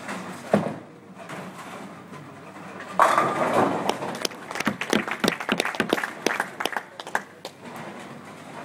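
Ten-pin bowling ball landing on the lane with a thump on release and rolling, then striking the pins with a sudden crash about three seconds in, followed by several seconds of pins clattering.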